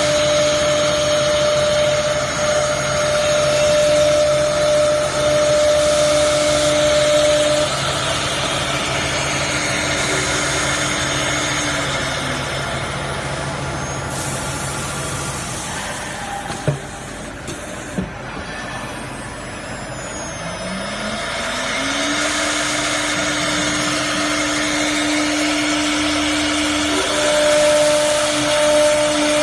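Spindle motors of a three-spindle CNC router whining at high speed while the bits cut grooves in a board, with a rough cutting hiss underneath. About ten seconds in, the spindle whine slides down in pitch and fades. Two sharp clicks come in the quieter middle, and from about twenty seconds in a spindle whine slides back up to full speed and holds steady.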